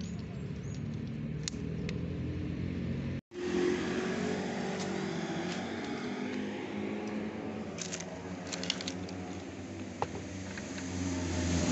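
A motor vehicle engine runs steadily in the background as a low hum. The sound drops out for a moment about three seconds in, and a few light clicks come near the end.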